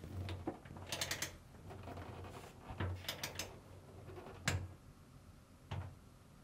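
Ratcheting torque wrench turning a 5 mm Allen bit on a dryer drum-bearing screw: two short runs of quick ratchet clicks, then single sharp clicks, the loudest about four and a half seconds in.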